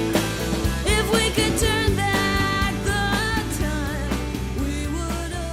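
A song playing, with a singing voice over a band accompaniment.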